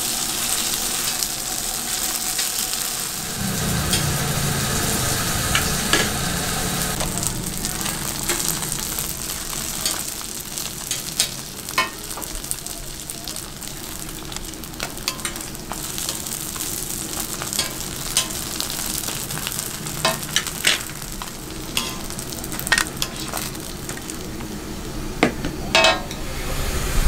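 Korean pan-fried dumplings sizzling steadily in oil on a flat griddle, with sharp clicks and scrapes of metal tongs turning them, more frequent in the second half.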